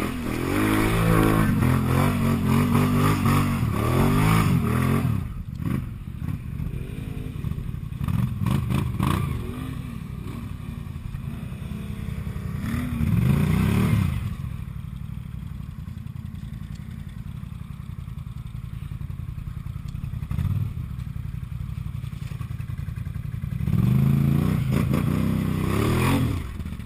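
Can-Am Outlander 1000's V-twin engine revved hard in repeated bursts while the ATV churns in deep swamp mud, dropping back to idle between: a long run of revs at the start, short blips about 8 and 13 seconds in, and another run near the end.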